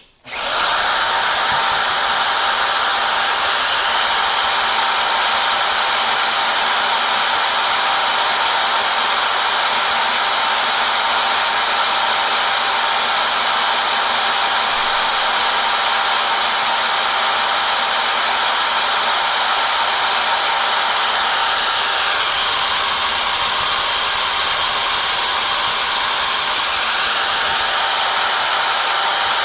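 Milwaukee 90-degree right-angle drill starting up and running steadily under load as its bit bores into the core of a hardened padlock.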